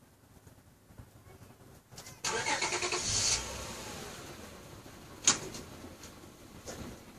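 An engine starting: a sudden burst with fast even pulsing for about a second, then a lower, steadier running sound that slowly fades. A single sharp click about three seconds after the start.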